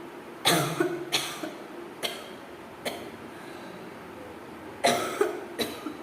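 A person coughing: a quick run of three coughs about half a second in, two single coughs a little later, then another run of three near the end.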